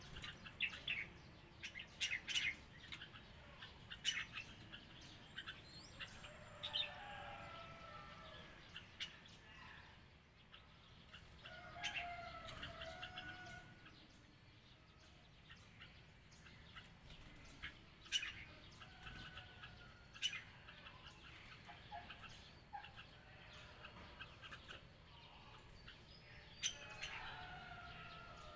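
Red-whiskered bulbuls calling: scattered sharp, faint chirps, with a few short warbled phrases in between.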